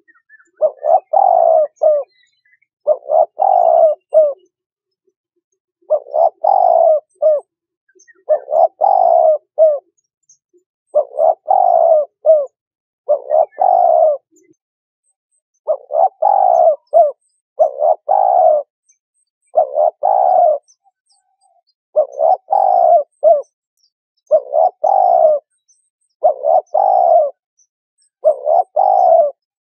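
Spotted dove cooing: its phrased coo call repeated over and over, one phrase about every two seconds. This is the call used to draw in other doves.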